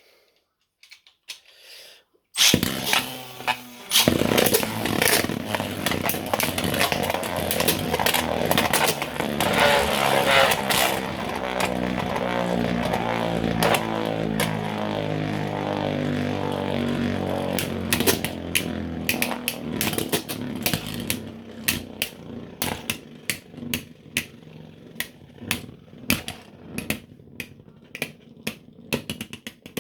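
Two 3D-printed beyblade spinning tops launched into a stadium about two seconds in, whirring with a hum that slowly falls in pitch as they lose speed, with sharp clashes as they hit each other. In the last third they slow and rattle and clack against each other and the stadium floor in quick clicks.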